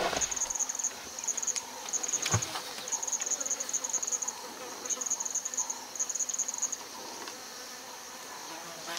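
Insects chirping in short trains of rapid, high-pitched pulses, starting and stopping several times and falling away after about seven seconds. One brief knock sounds about two seconds in.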